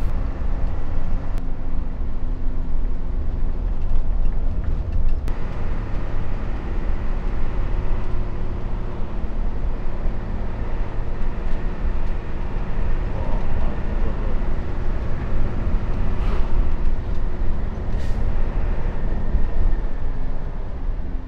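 Steady engine and road rumble inside a moving intercity bus cruising along a highway.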